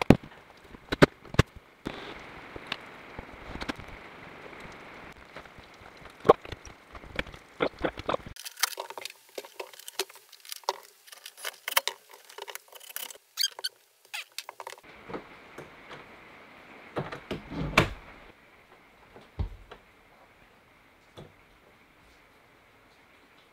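Scattered clicks, taps and light knocks of a screw gun and door hardware being handled while a door is worked on, with no steady motor run.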